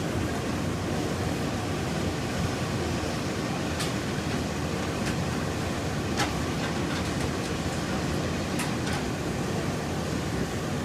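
Steady rumbling background noise, broken by a few sharp clinks about four, six and eight and a half seconds in.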